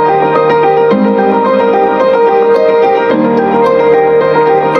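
Background music: piano playing sustained chords that change about every two seconds.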